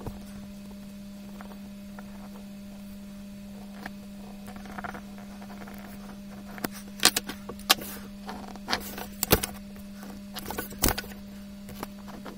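Sped-up technical drawing: drawing instruments (compass, set square, pencil) clicking and tapping on paper and board over a steady low hum, the clicks sparse at first and coming thick and fast in the second half.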